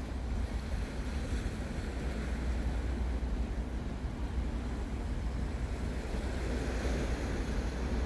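Wind buffeting the microphone in a steady low rumble over the wash of sea waves against a rocky shore.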